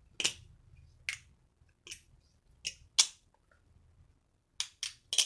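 Balisong (butterfly knife) being flipped through the Y2K trick, its handles clacking against each other and the blade in about eight sharp, unevenly spaced clicks.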